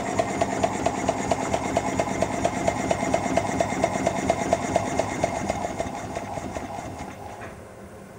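5-inch gauge Royal Scot model locomotive chassis running on compressed air on its outside cylinders, with the inside cylinder disconnected. Its cylinders and motion beat rapidly and evenly. After the regulator is closed, the beats fade and die away as the wheels coast to a stop.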